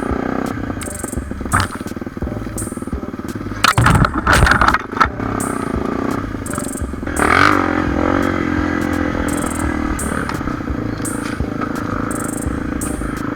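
Single-cylinder dirt bike engine running on a rough trail, with a burst of loud clattering knocks about four seconds in and a rev that rises and falls about seven seconds in.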